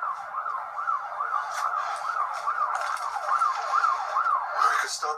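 Emergency-vehicle siren in a fast yelp, its pitch sweeping up and down about two and a half times a second, from the TV episode's soundtrack. A short burst of noise comes near the end.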